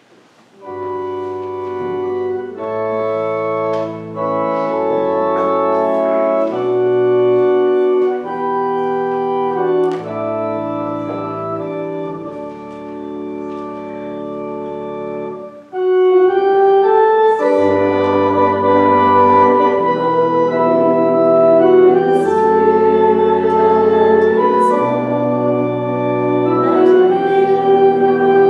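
Church organ playing a hymn in sustained chords over bass notes. It enters about a second in and swells much louder and fuller a little past halfway.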